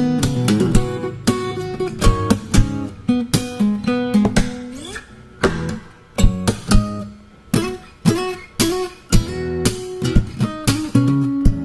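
Background music on acoustic guitar: a steady run of plucked and strummed notes.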